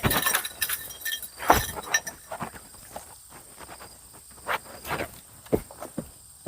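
Footsteps on a rough forest path: irregular crunching steps with sharp snaps and clicks, busiest in the first two seconds.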